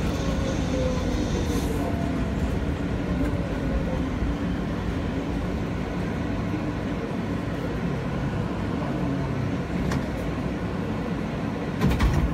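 J subway train running along its elevated track, heard from inside the car: a steady rumble and rail noise with a low wavering hum. There is a short click near the end and then a louder clatter.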